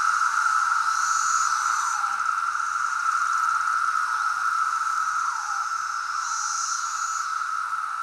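Dense chorus of periodical cicadas: a steady, loud buzzing drone with individual calls that slur downward in pitch every second or two, and a higher hiss that swells and fades.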